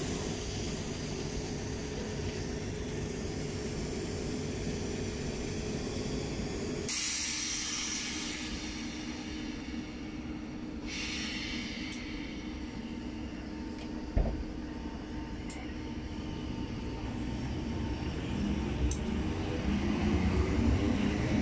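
South Western Railway Class 455 electric multiple units running through the station: a steady rumble of wheels and motors with a held tone. About a third of the way in a hiss starts and lasts a few seconds, there is one sharp clunk a little past halfway, and near the end a whine rises in pitch as a unit gathers speed.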